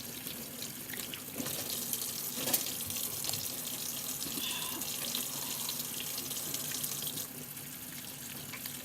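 Kitchen sink tap running while hands are washed under it, with a few light knocks. The flow is strongest from about a second and a half in until about seven seconds, then eases off.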